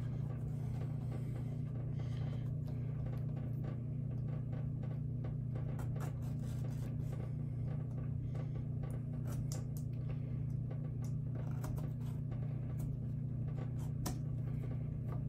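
Utility knife cutting through clamped leather: irregular small scrapes and clicks of the blade, over a steady low hum.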